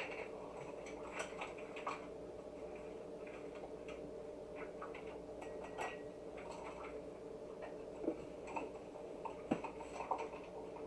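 Light scattered clicks and taps of a plastic measuring spoon and small dishes being handled on a kitchen counter, with a few sharper knocks near the end, over a steady low hum.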